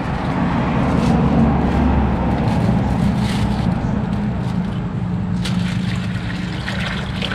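Steady low hum of a motor vehicle engine idling close by, with street traffic noise and a few light rustles.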